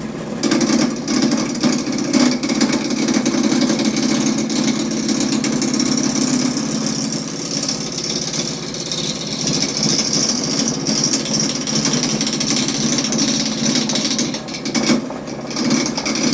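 Harbor Freight lathe starting up on its first run and running steadily with a rapid rattle. A higher hiss joins in from about six seconds to about fourteen seconds.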